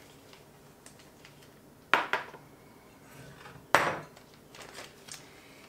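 Two sharp knocks about two seconds apart as kitchenware is set down on the counter, the second as the small measuring cup is put down after pouring.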